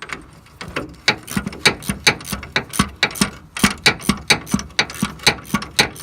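Socket ratchet wrench clicking rapidly as it is swung back and forth, about four or five clicks a second, loosening a leaf-spring U-bolt nut that has just broken free.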